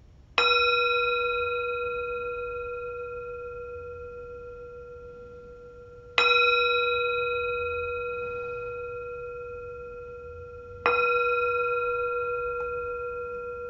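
Metal singing bowl struck three times with a wooden striker, each strike ringing out with several clear tones that fade slowly. The strikes come about six seconds apart, then under five.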